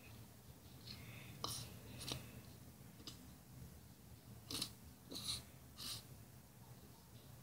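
Squeeze bottle of white wood glue pressed over a bowl, letting out a few short hissing puffs of air and glue from the nozzle, three of them close together about halfway through.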